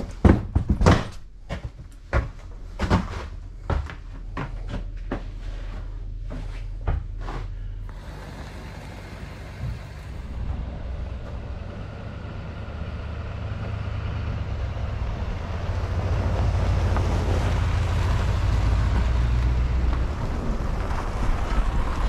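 A run of sharp, irregular knocks and thumps for about the first eight seconds, then a vehicle running steadily, its low rumble and road noise building up over the following seconds.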